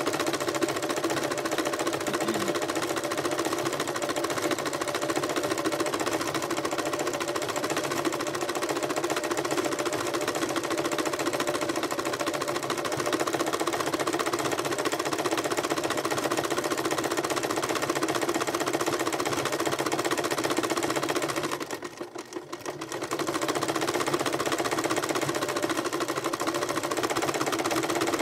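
Sewing machine running steadily as it stitches through coiled fabric-wrapped rope to build a rope bowl. It stops for about two seconds late on, then starts again.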